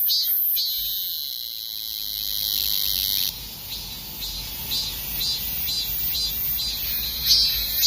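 Korean robust cicada (Hyalessa fuscata) singing: a high, continuous buzz for about three seconds, then breaking into evenly repeated pulses, about two a second.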